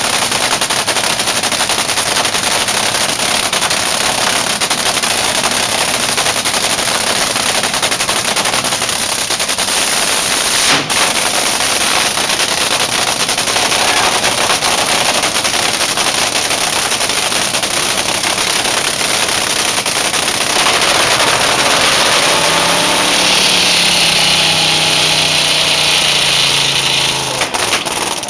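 Supercharged nitromethane Hemi V8 of a Top Fuel dragster running loud during a pit warm-up, with a sharp throttle blip about eleven seconds in that sends out a shock wave. In the last few seconds the note drops lower and steadier, and the engine stops just before the end.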